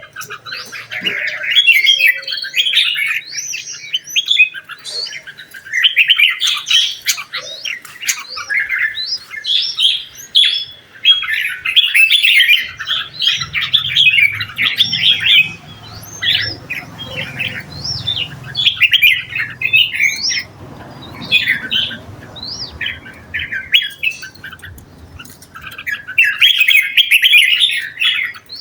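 A bird chattering in quick runs of chirps and squawks that keep on with only short pauses, with a low hum underneath through the middle stretch.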